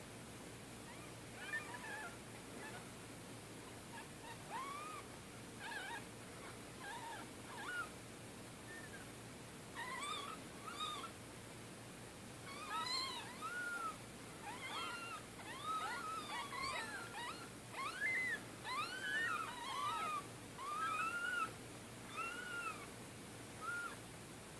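Newborn kittens, two to three days old, mewing with short, high, arching cries: a few scattered calls at first, then from about halfway several kittens crying at once, overlapping.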